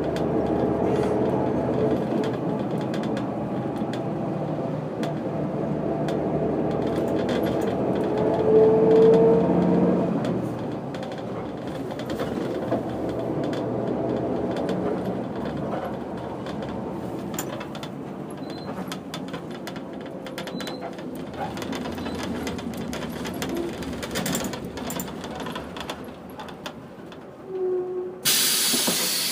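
Setra 315 UL bus's diesel engine and running noise heard from inside the bus, swelling briefly and then easing off as the bus slows. Near the end, a sudden loud blast of compressed-air hiss from the bus's air system.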